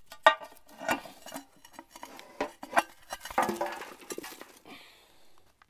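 Cast iron camp oven and its lid being handled: a string of sharp metal clanks and clinks, the loudest near the start, the rest scattered over the next four seconds.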